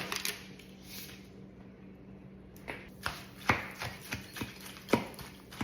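Kitchen utensils knocking and clicking against a pan or containers: a few scattered sharp taps, mostly in the second half, over a faint steady hum.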